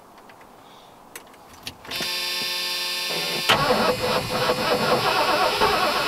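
Old pickup truck being started: two small clicks of the ignition key, the starter cranking steadily for about a second and a half, then the engine catching about three and a half seconds in and running.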